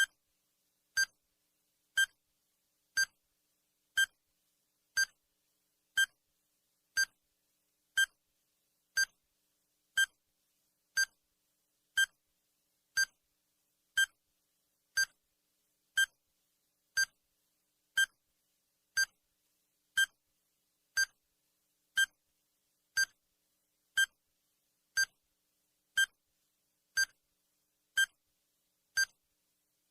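Countdown timer sound effect: a short, high electronic beep once every second, each one identical and evenly spaced, marking the seconds as the timer counts down.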